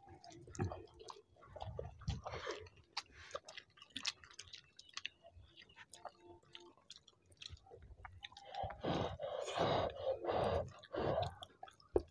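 Chewing and wet mouth sounds of people eating soft khichuri (rice and lentils) by hand, with scattered small clicks of lips and fingers. A louder spell of chewing comes about three-quarters of the way through.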